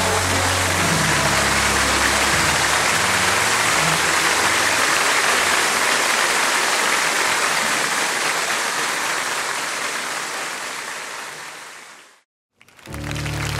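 Audience applause at the end of a live song, with the song's last low notes dying away in the first few seconds; the applause fades out about twelve seconds in, and after a brief silence the next song begins.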